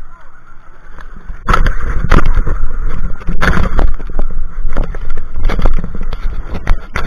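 Loud, irregular rumbling and knocking on a handheld camera's microphone, starting about a second and a half in, as the camera bumps and rubs against an inflatable banana boat amid splashing seawater.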